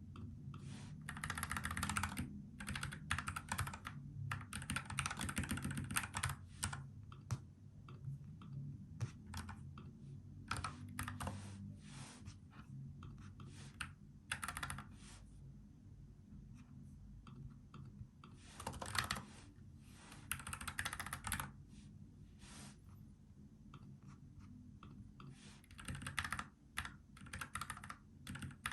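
NuPhy Air75 low-profile mechanical keyboard with tactile brown switches being typed on, keys clacking in fast bursts with shorter pauses and scattered single keystrokes between them.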